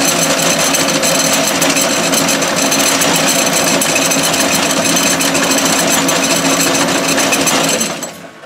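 Clausing 6903 metal lathe running steadily at about 410 rpm, its motor fed by a variable-frequency drive at about 29.5 Hz, with a loud mechanical drivetrain noise and a steady hum. About eight seconds in the drive is switched off and the sound dies away within half a second.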